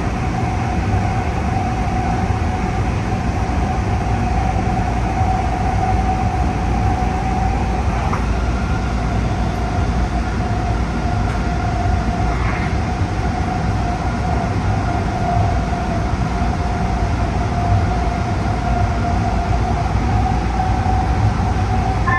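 Light rail train running steadily along the track, heard from inside the front car: a continuous rumble of wheels on rails with a steady whine over it. A faint click comes about a third of the way in.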